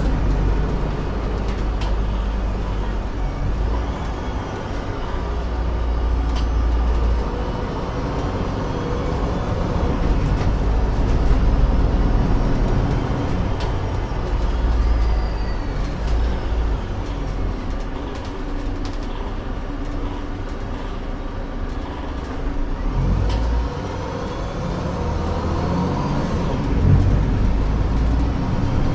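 Alexander Dennis Enviro 500 double-decker bus heard from the passenger saloon while on the move: its Mercedes-Benz OM936 six-cylinder diesel and Voith automatic gearbox give a steady rumble. A whine rises and falls in pitch several times, and a few short rattles come through.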